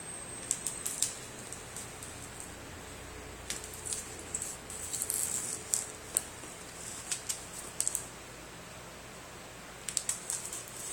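Hands working at the clear packing tape on a cardboard shipping box to open it: scattered sharp crackles and clicks of tape and cardboard, in several short flurries.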